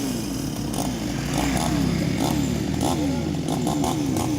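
A small engine running steadily, with a repeated falling whine a few times a second over it.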